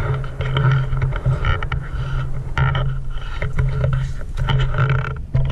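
A steady, loud motor hum that breaks off briefly several times, with scattered short knocks.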